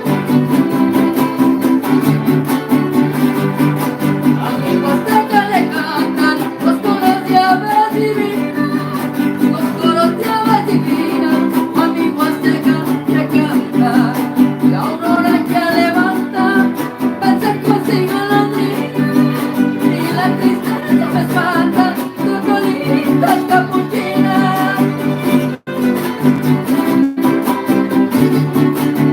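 A son huasteco (huapango) played by a trío huasteco: the huapanguera and jarana huasteca strum a steady rhythm while a wavering melody line, violin or voice, runs above it.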